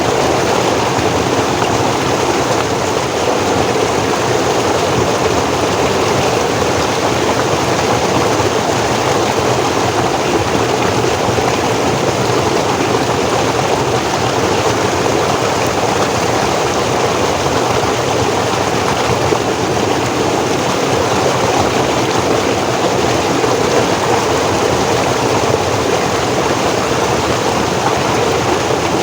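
Forest stream flowing and cascading over rocks: a steady, unbroken rush of water.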